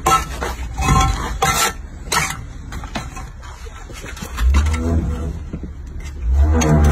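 Several sharp knocks and scrapes of a steel trowel on hollow concrete blocks in the first few seconds. A deep bass comes in about two-thirds through and music starts near the end.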